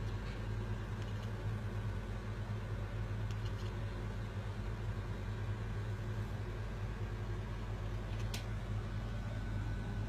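Steady low hum, like a running fan or appliance, with one faint click about eight seconds in.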